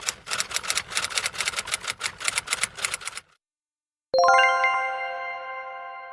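A typewriter sound effect: rapid key strikes clattering for about three seconds, then after a short pause a single bell ding that rings on and fades away.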